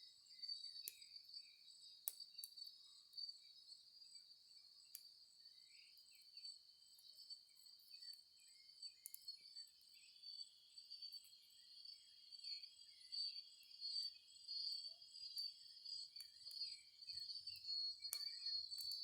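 Faint, steady high-pitched drone of insects chirring in the scrub, with a few sharp clicks now and then.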